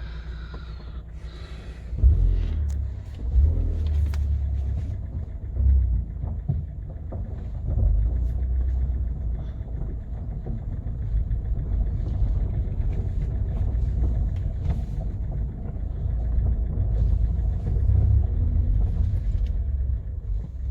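Inside the cabin of a Kia Cerato with a 1.6-litre G4FC engine, pulling away and driving slowly: a low engine and road rumble, with a few sharp thumps from bumps in the first eight seconds. There is no door knock to be heard, since the worn door hinges have just been replaced.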